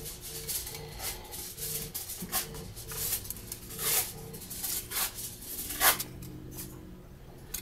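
Metal tweezers and small parts clicking and scraping against the opened body of a Canon EOS 60D camera during disassembly: scattered light clicks, the sharpest about six seconds in.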